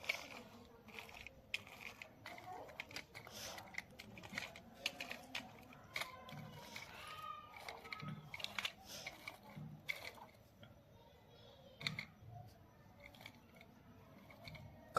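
Scattered light clicks and taps of small toy cars being handled.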